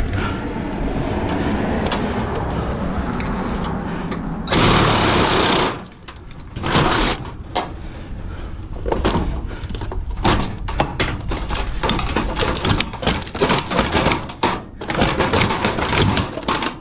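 Porter-Cable reciprocating saw running and cutting through appliance metal for about the first six seconds, loudest in its last second or so. This is followed by a run of sharp clanks and knocks as metal pieces are handled.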